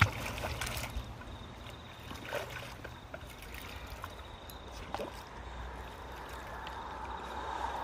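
A dog wading at the water's edge, water sloshing and trickling around its legs and muzzle, with a few short splashes about two and a half seconds apart.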